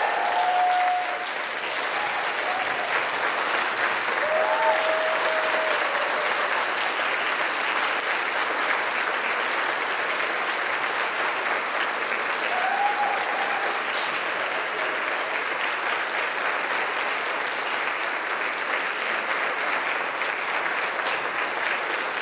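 Audience applauding steadily, with a few short calls from the crowd rising over the clapping.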